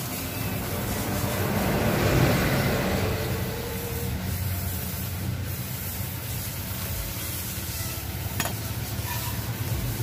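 Background traffic: a steady low engine hum, with a rush of noise that swells and fades about two seconds in, and a single click near the end.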